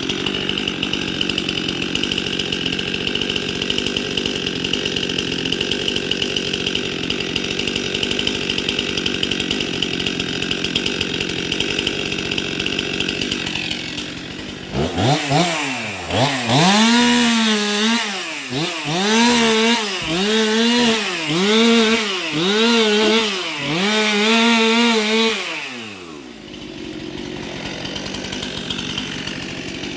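Gas chainsaw running steadily, then from about halfway revved up and down about seven times in quick succession before dropping back to a steady run.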